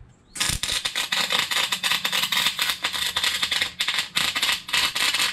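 Electric arc welding on a thick beveled steel plate: a steady, dense crackle and sizzle of rapid fine pops that starts about half a second in, as a bead is laid.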